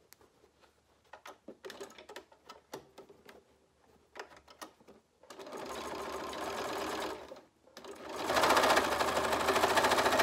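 A scatter of light clicks, then a Bernina Aurora 440 QE sewing machine stitching through the thick coiled fabric rope in two runs: a short one about halfway in, and after a brief stop a louder one near the end.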